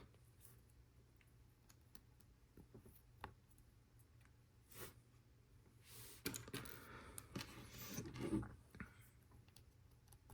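Faint, scattered clicks of LEGO Technic pieces being handled and fitted together, with a denser stretch of rattling and rustling of parts from about six to nine seconds in.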